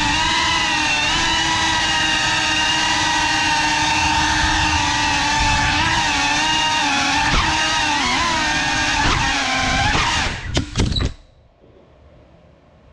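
FPV drone's motors and propellers whining steadily in flight, heard from the onboard camera, the pitch wavering a little with throttle. About ten seconds in there are a few sharp knocks and the motor whine cuts off suddenly, as the drone hits a wall and stops.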